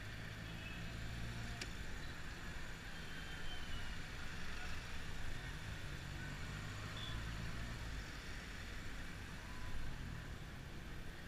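Taxi's engine running and tyre and road noise heard from inside the cabin while driving in traffic, the engine note swelling and easing a couple of times.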